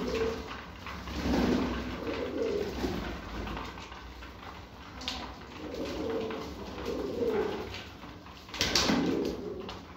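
Domestic pigeons cooing, a series of low murmuring coos repeated every second or so, with a brief sharp noise near the end.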